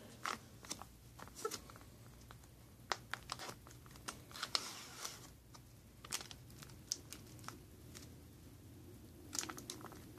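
Foil MRE retort pouch crinkling and crackling in irregular short bursts as it is handled and opened by hand.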